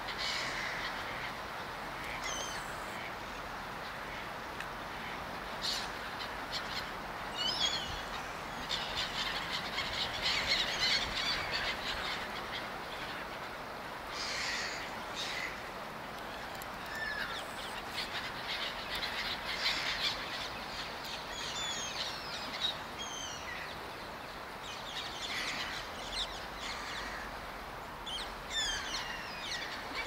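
Background birds calling, monk parakeets and black-headed gulls: scattered harsh squawks and chattering, busiest around ten seconds in, over a steady hiss.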